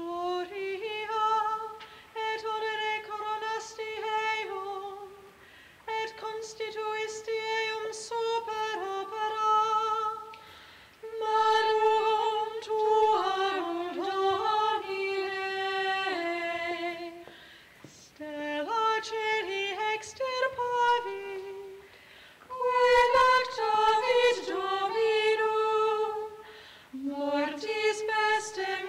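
A single high voice singing unaccompanied, a slow melody in phrases broken by short pauses for breath.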